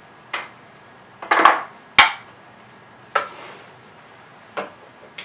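Irregular knocks and metallic clinks of hand tools and metal parts being set down and handled on a wooden workbench: about six separate strikes, the sharpest about two seconds in.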